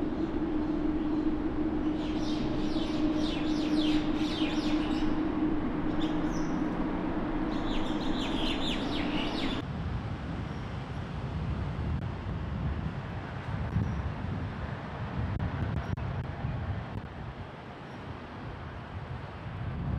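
Boeing 787's jet engines running at taxi power, a steady low hum, with small birds chirping in two spells. About ten seconds in, the sound cuts to the low rumble of an Airbus A380's engines on final approach.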